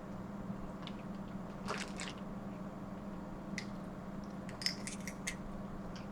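A few faint, scattered wet squishes and light clicks from messy seafood being handled and eaten at the table, over a steady low hum.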